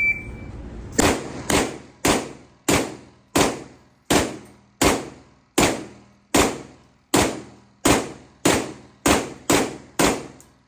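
A shot-timer beep right at the start, then about fifteen semi-automatic gunshots from a 9mm AP5 short-barrelled rifle with a linear compensator, fired at a steady pace of roughly one every two-thirds of a second and stopping shortly before the end.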